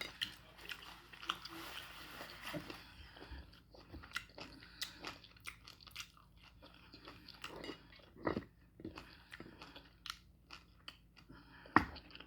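A person chewing and smacking their lips while eating slow-cooked beef bone marrow and onions: a string of short wet clicks and smacks, with louder ones about eight seconds in and near the end.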